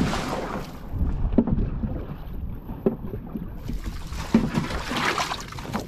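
Wind buffeting the microphone with a low rumble, over small waves washing onto a sandy beach, and a few dull thumps about every second and a half.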